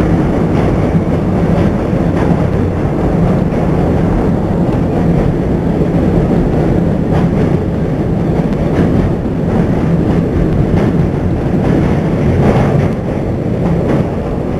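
New York City subway N train running at speed: a steady, loud rumble and rattle, with faint clicks scattered through it.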